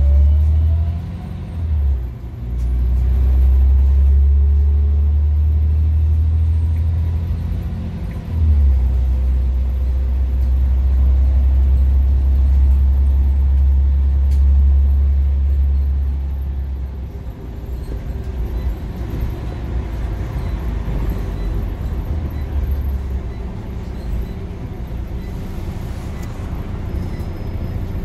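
Scania OmniCity single-deck bus heard from inside the saloon, its engine pulling with a loud low drone that dips briefly about two seconds and eight seconds in as the ZF automatic gearbox changes up, over a faint whine from the ZF gearbox. The drone drops to a quieter, steadier running sound after about seventeen seconds.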